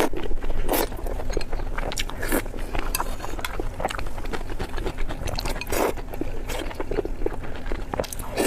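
Close-miked chewing and biting of spicy pork belly: irregular wet mouth clicks, smacks and crunches, with some scraping.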